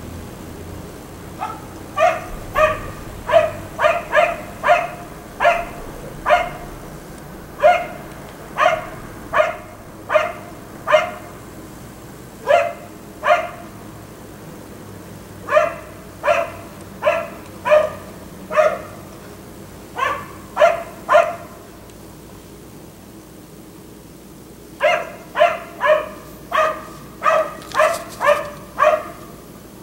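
Black Labrador barking over and over in runs of short, evenly spaced barks, at times two or three a second. It pauses for about three seconds shortly before the end, then gives a last quick run of barks.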